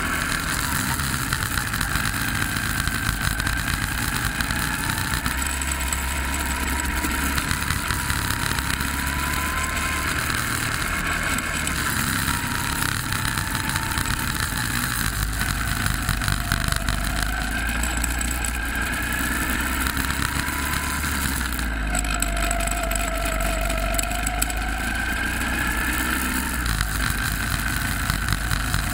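Go-kart engine running hard through a lap, its pitch rising and falling again and again as the driver accelerates out of corners and lifts off going into them.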